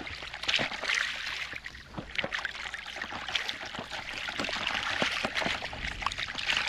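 Shallow seawater lapping and sloshing close to the microphone: a steady watery hiss broken by many short, irregular slaps and splashes.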